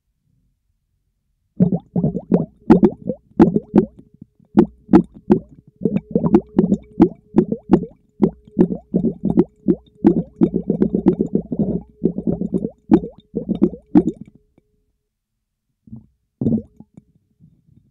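Air bubbles blown through a tube into a bowl of water, heard underwater through a latex-covered microphone: a quick run of bubbling pops, several a second, starting about a second and a half in and stopping about fourteen seconds in, with a few last ones near the end.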